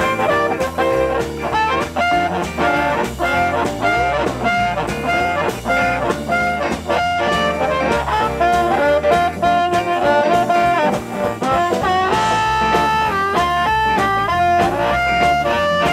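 Live blues band playing an instrumental section: amplified harmonica, cupped against a handheld microphone, takes the lead with held and bent notes over electric guitar and drums. Near the end the harmonica holds one long note, about twelve seconds in.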